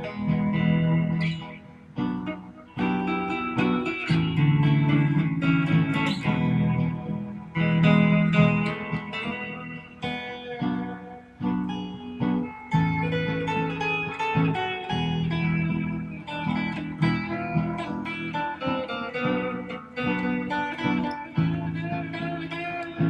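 Electric guitar, a Stratocaster, played through an amp: single-note lead lines and chords over a low chord part that repeats every couple of seconds from a Ditto looper pedal.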